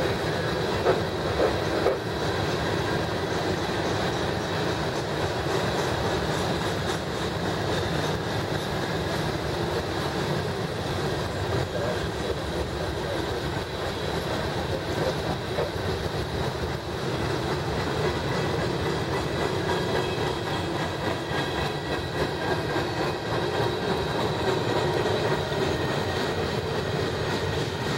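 Freight cars of a CSX manifest train rolling steadily past, their steel wheels clattering continuously over the rails.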